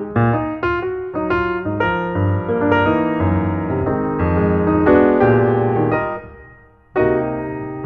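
Background piano music: a run of struck notes that swells, fades out about six seconds in, and starts a new phrase about a second later.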